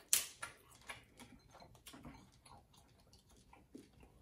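Cooked snow crab leg snapped open by hand: one sharp crack of the shell right at the start, then faint scattered clicks and crackles as the shell pieces are worked apart and the meat is drawn out.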